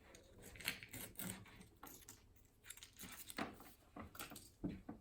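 Plastic slime packaging being handled and opened: a series of irregular crinkles and small clicks, the loudest about three and a half seconds in.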